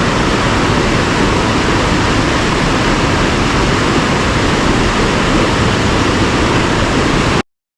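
Small roadside waterfall rushing in a loud, steady roar that cuts off abruptly near the end.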